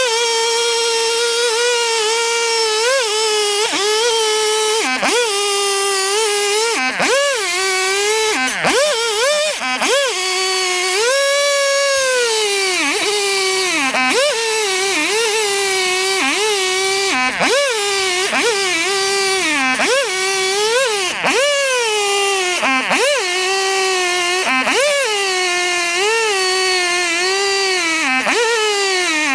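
Two-stroke chainsaw ripping lengthwise through a log at high revs, its pitch dipping briefly about every second or so as it works the cut.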